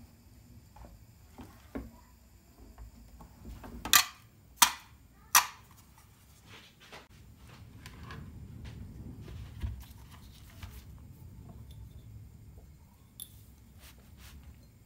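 Kitchen handling sounds: three sharp clacks in quick succession, then soft low rustling and scraping as things are moved and set down on a cloth-covered counter, with a few light taps.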